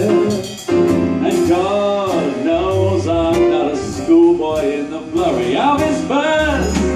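A song: a singer holds long, wavering vibrato notes over instrumental accompaniment.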